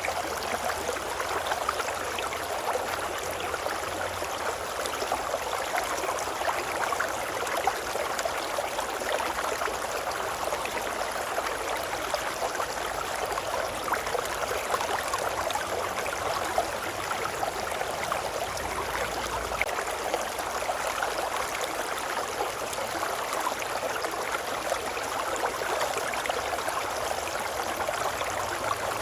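Babbling brook: running water flowing steadily, an even, dense rush of small splashes with no pauses or changes.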